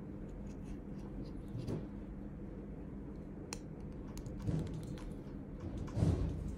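Handling noise from a small plastic wireless microphone transmitter as a furry windshield is pushed onto it: faint rubbing and a few small clicks, with the loudest rub near the end, over a steady low hum.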